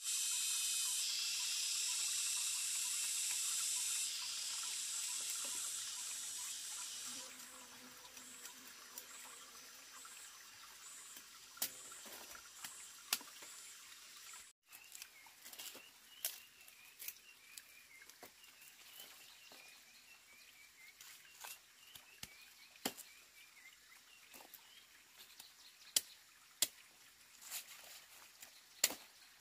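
A loud, high-pitched hiss that fades out about seven seconds in, then scattered sharp clicks and snaps of a large knife cutting and trimming freshly dug plant roots.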